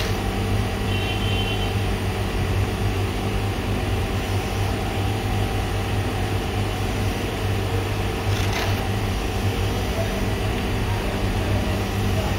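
Gelato batch freezer running with a steady mechanical hum while finished gelato is drawn out through its door.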